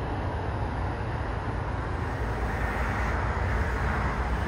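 Twin-engine jet airliner on final approach, about to touch down: a steady jet engine rumble and hiss that grows slightly louder in the second half.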